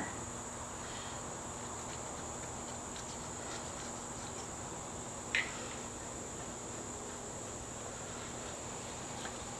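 Steady high-pitched trill of a cricket over a faint hum. About five seconds in there is one short scrape, a razor blade scraper working old gasket material off the intake.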